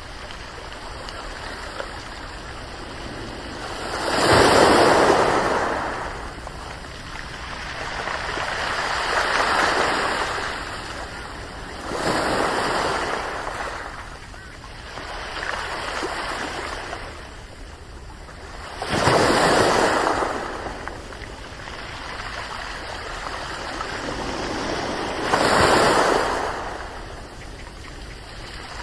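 Ocean waves breaking and washing ashore one after another over a steady hiss of surf, each surge swelling and fading over a couple of seconds; the biggest breaks come about four seconds in, about two-thirds of the way through, and near the end.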